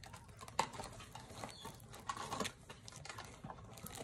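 Two pet parrots scuffling over an empty cardboard box: faint, scattered taps, scrapes and clicks, the sharpest about half a second in.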